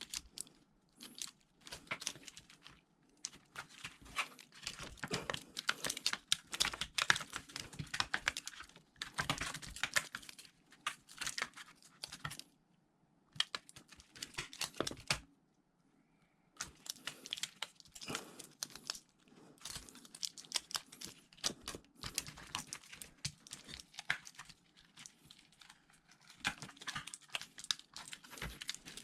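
Hand work on a MacBook Pro laptop during a battery replacement: irregular bursts of scratching, crackling and clicking as parts are pried, peeled and handled, with a pause of a few seconds about halfway through.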